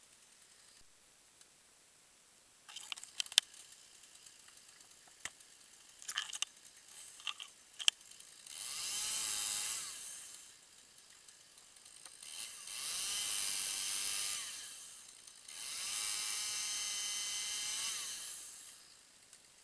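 A small top-handle chainsaw revving in three runs of two to three seconds each, its pitch rising and falling, while it is held to a tree limb to cut it. Before it, a scatter of sharp clicks and snaps.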